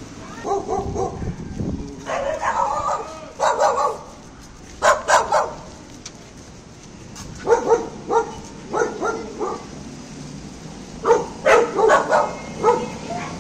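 A dog barking repeatedly, in about six short volleys of sharp barks with pauses between them.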